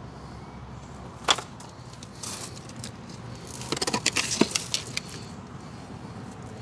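Light metallic clicks and clinks: one sharp click about a second in, then a quick run of clinking and rattling a few seconds later, over a steady low hum.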